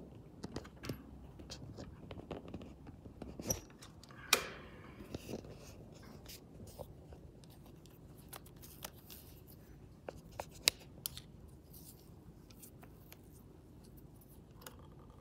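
Metal parts of a vintage Singer sewing machine being handled: scattered light clicks and small knocks, with one louder clank that rings briefly about four seconds in.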